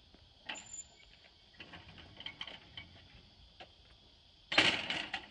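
Scattered light clicks and taps, then a loud clatter of knocks about four and a half seconds in as a boarding step stand is moved and set against the aircraft's fuselage.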